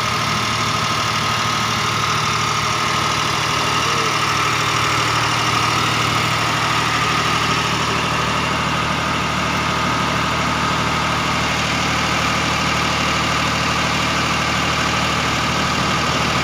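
Engine-driven welding machine running steadily at an even idle.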